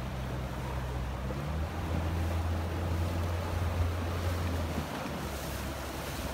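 Wind buffeting the microphone and choppy water rushing past a moving rigid inflatable boat, under the low, steady hum of its outboard motor. The motor's hum shifts up in pitch about a second and a half in and fades out near the end, leaving wind and water.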